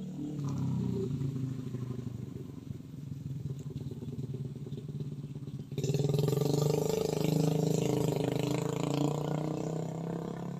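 A vehicle engine running steadily, getting louder and rougher about six seconds in.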